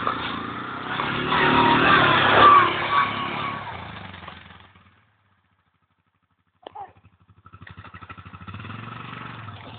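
Yamaha Grizzly 700 quad's single-cylinder engine revving hard through a run-up and jump, loudest about two and a half seconds in, then fading away by about five seconds. After a gap of near silence, an engine idles with an even, rapid pulse from about seven and a half seconds.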